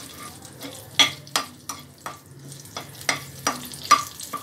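Slotted metal spatula scraping the kadhai in a series of sharp strokes as a bay leaf and a cinnamon stick are stirred in hot oil, with a faint sizzle of the frying underneath.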